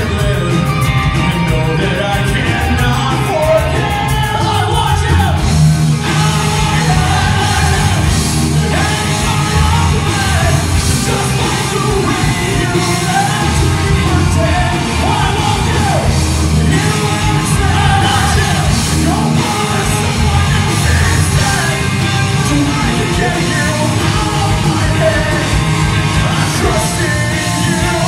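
Live rock band playing at full volume: a lead singer belting into a handheld microphone over electric guitars and drums.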